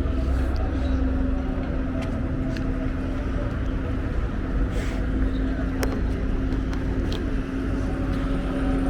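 Steady motor rumble with a constant hum, broken by a few short sharp clicks.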